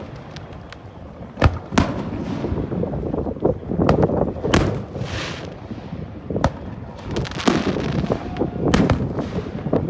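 Fireworks display: aerial shells bursting in sharp bangs every second or so over a continuous low rumble, with a brief hissing crackle about five seconds in.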